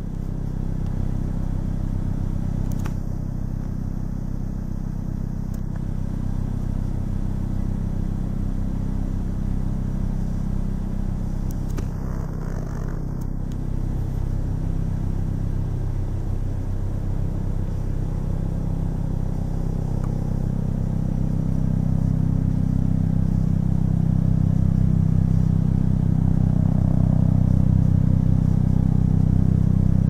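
Steady low engine rumble with a hum of several even low tones, slowly growing louder toward the end.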